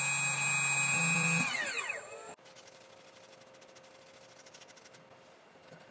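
Spindle motor of a 2m2tank CNC key cutting machine whining steadily, then spinning down about one and a half seconds in, its pitch falling until it stops: one side of the copper key blank has finished cutting. A faint rapid ticking follows.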